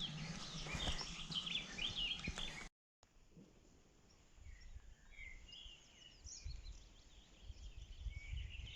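Small birds chirping and singing in short, high calls over a low rumble. The sound cuts out briefly about three seconds in, and the birdsong goes on more faintly after it.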